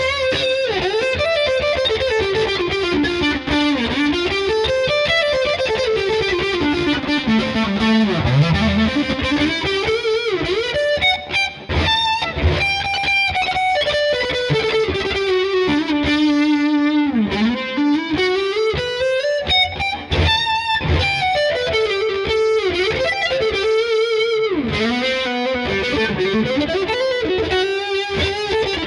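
Washburn N4 electric guitar through a distorted amp tone, playing fast single-note lead lines. Several times the pitch swoops down and back up.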